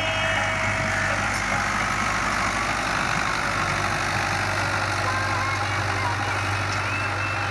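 New Holland 640 tractor's diesel engine running steadily under load while it pulls a laser land leveler over dry, cloddy soil.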